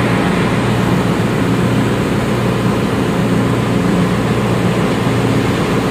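Steady, loud drone of running machinery in a ship's engine room, with a constant low hum under it.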